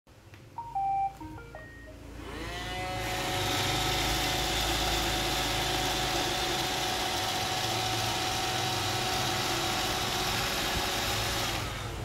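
iRobot Roomba 760 robot vacuum starting up: a short series of electronic beeps, then its vacuum and brush motors whir up to speed and run steadily, spinning down near the end.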